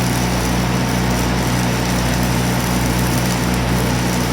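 Arc welding crackling steadily, the frying hiss of a stick or flux-core arc, over the constant low hum of welding machines.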